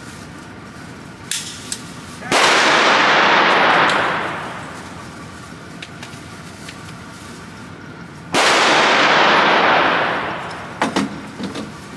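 Two gunshots in an indoor shooting range, about six seconds apart, each a sudden loud blast that rings on for over a second before dying away. A few light clicks come around them, more near the end.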